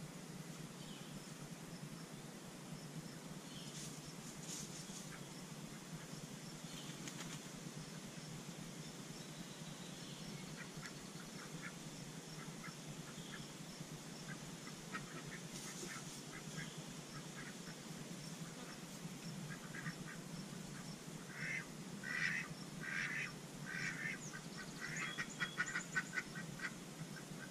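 Chicken hens clucking: a quick run of short clucks in the last several seconds, the loudest sound here, with a few faint rustles earlier.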